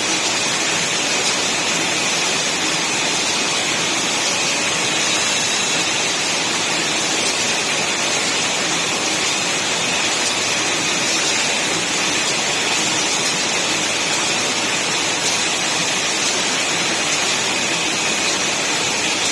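Guangzhou Nova shrink wrapper, rated at 60 packs a minute, running: a loud, steady hiss with no distinct rhythm or clicks.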